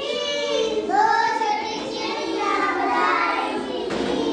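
A group of young children singing a rhyme together.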